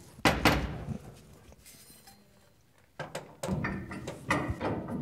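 Metal clunks of an Ididit steering column and its mounting clamp being handled and fitted under a truck dash: one knock just after the start, then a cluster of knocks and clicks over the last two seconds.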